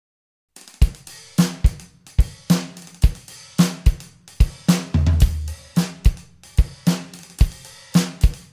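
Silence, then about half a second in a rock drum kit starts a song alone, playing a steady beat of kick and snare hits with cymbals.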